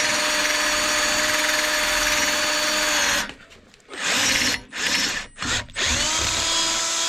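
Electric drill boring holes, running steadily for about three seconds and then stopping. It follows with a few short trigger pulses and spins back up for another run near the end.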